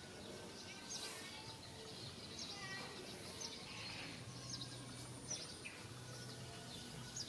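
Faint background ambience: scattered short, high chirps over a low steady hum.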